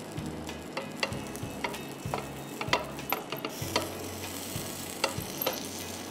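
Panini sizzling in butter and oil on a hot grill pan as it toasts, with scattered sharp clicks and crackles at irregular moments.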